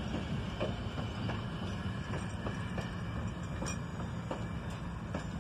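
Vintage passenger coaches of an excursion train rolling slowly past, a steady low rumble with irregular clicks as the wheels pass over the track.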